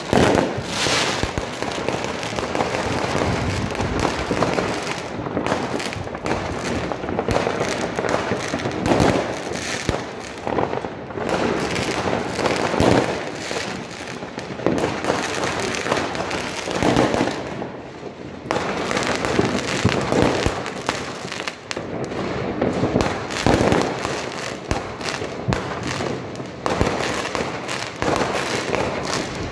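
Many fireworks and firecrackers going off together in a dense, continuous barrage of bangs and crackling, with louder bursts every few seconds.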